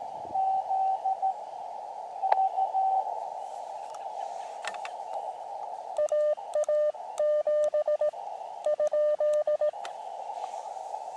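Elecraft KX2 transceiver receiving CW: a steady hiss of band noise through a narrow filter, with faint Morse code from a weak distant station in the first three seconds. From about six seconds in, the operator's own Morse code is keyed as a louder, slightly lower-pitched sidetone in three runs of dots and dashes.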